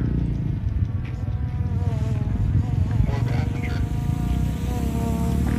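A pickup truck's engine working under load as it crawls up a steep, rutted dirt hill: a steady low rumble, with a whining note that wavers up and down from about two seconds in.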